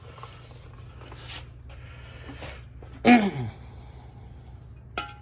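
Low steady shop hum, broken about three seconds in by a short falling vocal groan or sigh. Near the end comes one sharp metallic clink that rings briefly, like a steel brake part or tool being set down.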